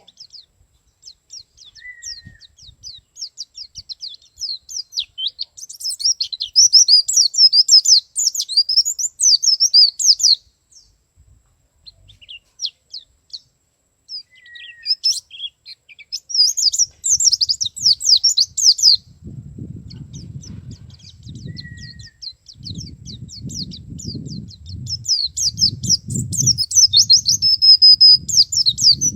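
Male white-eye (pleci) singing a fast, high-pitched twittering song of rapid sharp notes, in three long bouts with short pauses between. In the last third a low rumbling noise runs underneath.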